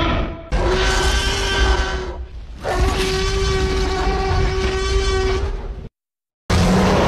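Tyrannosaurus rex roar sound effects: a series of loud, long roars, each held at a steady pitch, the longest lasting about three seconds. After a brief silence, another roar starts near the end.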